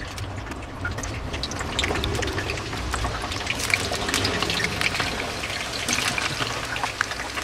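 Hot oil in a frying pan sizzling and crackling as brine-wet potato wedges are dropped in by hand, the crackle growing denser after about a second and a half.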